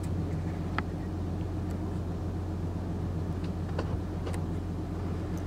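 Steady low drone of a boat's engine, with a few faint clicks.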